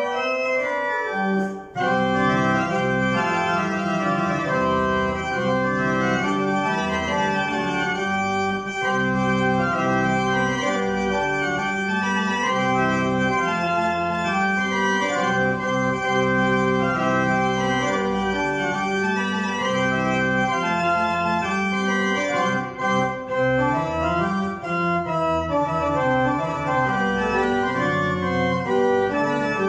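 1793 Johann Wilhelm Grüneberg pipe organ playing a gigue, several voices of held and moving notes sounding together. There is one short break just under two seconds in.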